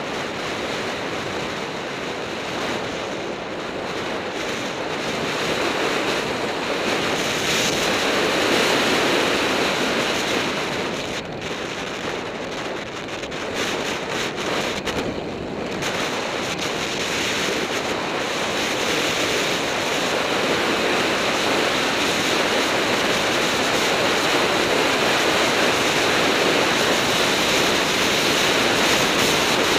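Wind rushing over the microphone of a camera during a fast downhill road ride, a steady noise that eases for a few seconds around the middle and then builds again toward the end.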